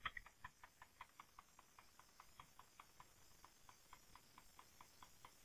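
Faint, quick, even clicks of a computer keyboard key pressed over and over, about four to five a second, scrolling a terminal pager line by line.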